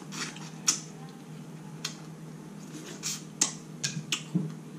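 Close-miked eating of a saucy seafood boil: wet chewing and lip-smacking, heard as a scattering of short, sharp clicks, about eight of them, over a faint steady hum.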